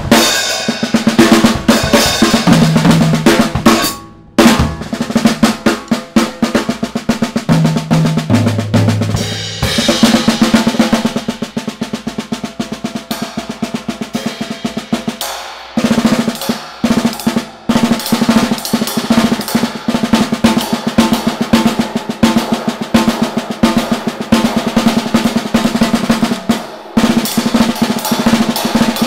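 Drum kit played solo with sticks: fast, busy snare strokes with cymbals and bass drum, and tom fills a few seconds in and again near 8 to 9 seconds. The playing breaks off briefly a few times.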